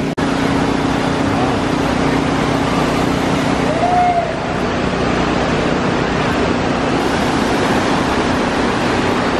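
River water rushing over rocks, a loud steady hiss of flowing water, with a low steady hum underneath.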